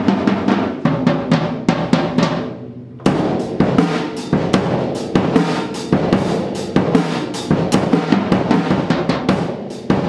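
Rope-tension drumset, a bass drum and a smaller rope-tension drum, played with sticks in quick, busy strokes with ringing drum tones. The playing fades off about two and a half seconds in, then starts again with a hard hit and keeps going.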